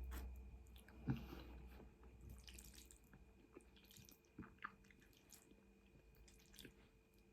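Faint mouth sounds of someone chewing food, with a few soft clicks and smacks, the clearest about a second in; otherwise close to silence.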